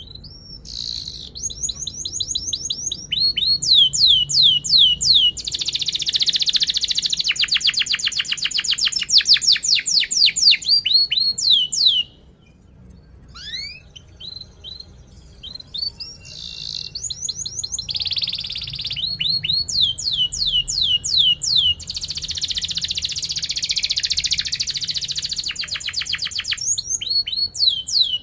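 Domestic canary singing two long song phrases of fast falling whistled notes and rapid rolling trills, with a brief pause about halfway through.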